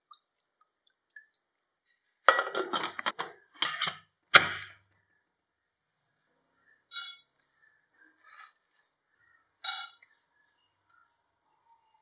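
Metal spoon clinking and scraping against cookware, ending in a sharp knock about four seconds in. Then three short rattling patters, a second or so apart, as spoonfuls of dry lentils (chana dal and urad dal) drop into an empty nonstick pan.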